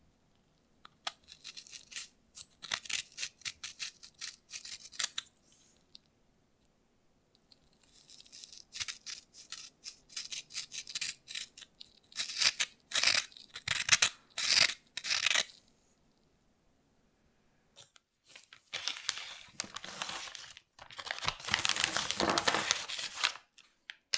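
Oreo cream filling being scraped off the chocolate cookie halves: dry, scratchy scraping in quick strokes, in three bursts with short quiet gaps, the last burst longer and more continuous.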